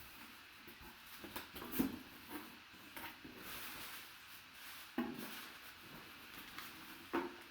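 Cardboard box and packaging being handled: light rustling with three short knocks, about two, five and seven seconds in.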